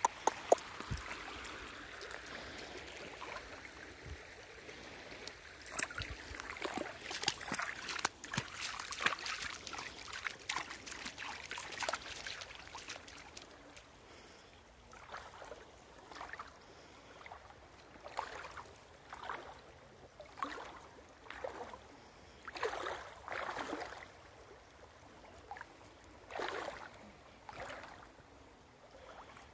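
Footsteps wading through shallow muddy floodwater. Splashing is busy for several seconds, then settles into single splashy steps about once a second.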